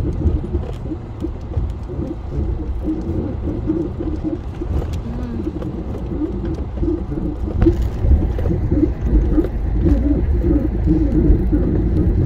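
Toyota Hilux camper truck running slowly over a rough dirt track, heard from inside the cab: a steady low rumble with uneven rattling. The noise is a sign that the truck has a mechanical problem and needs repair.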